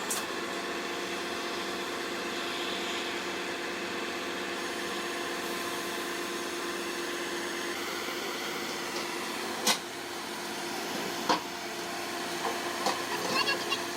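Heavy machinery engine running steadily, a constant mechanical drone, with two sharp knocks in the second half and a flurry of small clicks near the end.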